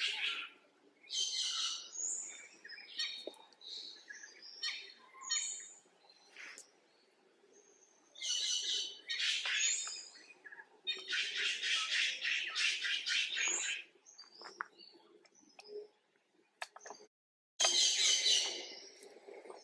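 Repeated high-pitched chirping and squealing animal calls, some short and some running for two or three seconds, with quieter gaps between them.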